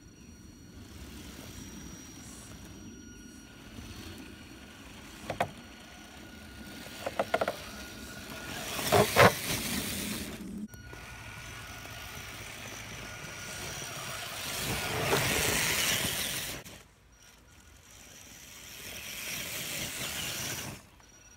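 Electric 8x8 RC crawler truck driving over the forest floor: a steady faint motor whine under the rustle and crunch of moss and twigs beneath its tyres. A few sharp knocks come between about five and nine seconds in, the loudest near nine seconds, and the sound cuts off abruptly a few times.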